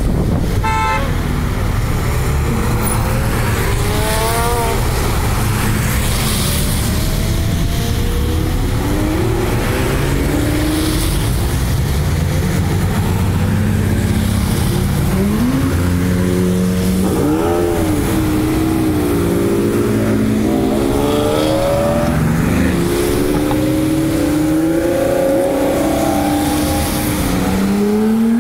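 A procession of sports cars, Porsche 911s among them, driving past one after another, their engines revving up and falling back as each goes by.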